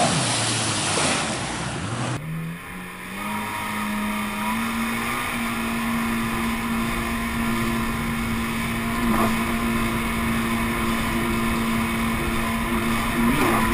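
2007 Kawasaki Ultra LX personal watercraft with its 160-horsepower engine, heard first from off the craft as it carves through spray. From about two seconds in it is heard from on board: the engine note climbs for a few seconds as the craft accelerates, then holds steady at speed.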